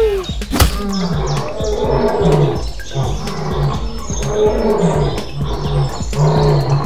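Lion roaring sound effect: a series of deep grunting roars about once a second, with birds chirping behind.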